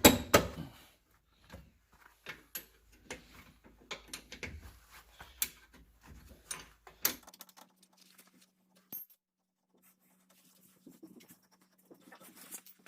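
Metal clinks and taps of a wrench working a rear brake caliper bolt, with a loud clank at the start and scattered small knocks after it. In the second half it goes quieter, with only a faint steady hum and a few light taps.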